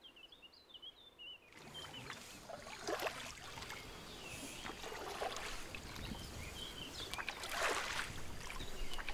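Wooden-handled paddles dipping and pulling through river water beside an inflatable dinghy, a splashy stroke about every two seconds. The strokes start about a second and a half in.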